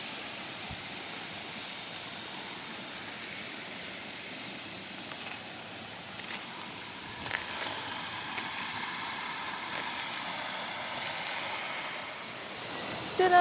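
Steady drone of forest insects: one unbroken high whine with a hiss above it, holding level throughout.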